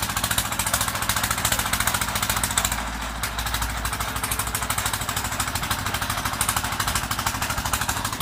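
Engine-driven well-drilling rig running: a rapid, even knocking over a steady low engine drone, easing briefly about three seconds in.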